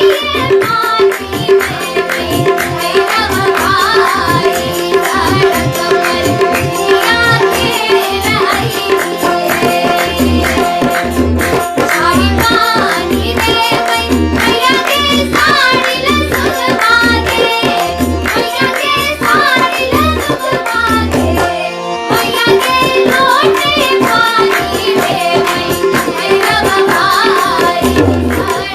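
Maithili Jhijhiya folk song: a voice singing the melody over tabla accompaniment, with deep, regular drum beats joining about a third of the way in. The music breaks off briefly about three-quarters of the way through, then resumes.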